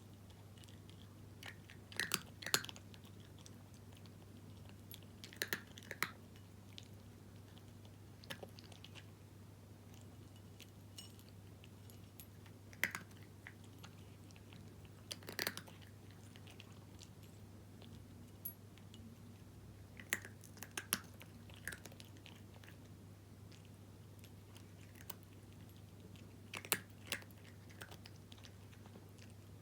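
A cat crunching dry kibble, in short clusters of crisp crunches every few seconds, over a faint steady low hum.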